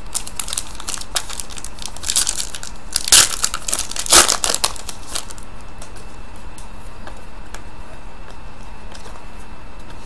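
Trading card pack wrappers crinkling and cards rustling as they are handled, with louder crinkling bursts about three and four seconds in.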